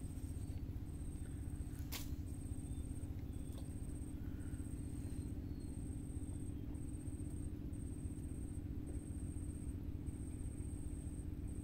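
A steady low hum, with a faint high-pitched tone pulsing on and off about once a second and a single sharp click about two seconds in.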